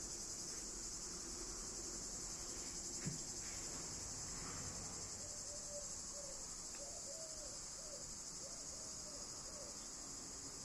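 Steady, high-pitched chorus of insects. About midway comes a short series of four low hooting notes, and about 3 seconds in there is one soft knock.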